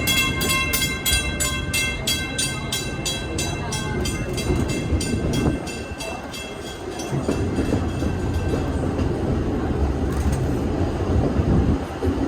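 Walt Disney World Railroad steam train running, with the low rumble of the cars on the track. During the first half, a fast, even, pulsing high tone, about four pulses a second, fades out.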